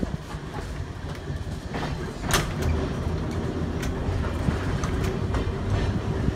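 Electric trolley car running along the track: a steady low rumble of wheels on rail, with scattered sharp clicks, the loudest about two and a half seconds in.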